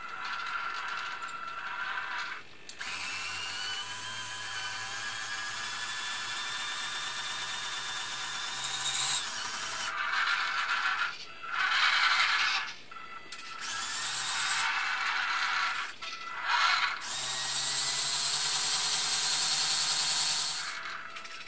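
Electric drive motors and gears of a Robbe Linde H50 RC model forklift whirring as it drives and manoeuvres, in several runs broken by short pauses. During the first long run the gear whine rises slowly in pitch, and the last run, near the end, is the loudest.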